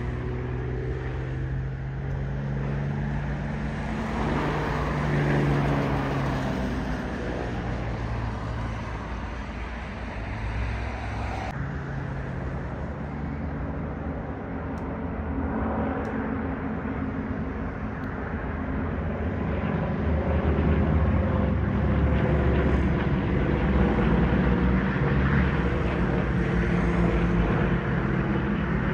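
Piston-engined propeller aircraft flying overhead: a steady engine drone with several pitched tones that slowly shift as the planes move. It grows louder after about twenty seconds.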